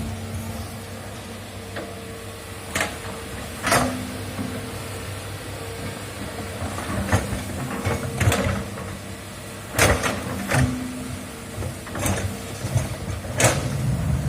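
Hydraulic excavator running steadily while digging, its engine tone shifting as the hydraulics load up. About half a dozen sharp knocks or clanks come at irregular intervals as the bucket works.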